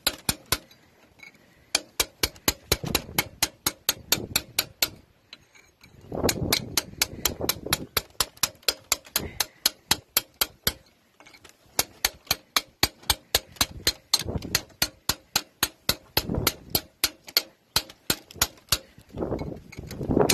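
Hammer striking a steel punch held against the rim of a carriage wheel's hubcap, metal on metal, tapping the hubcap round to tighten it onto the hub. The strikes come at about four a second in runs, with short pauses between runs.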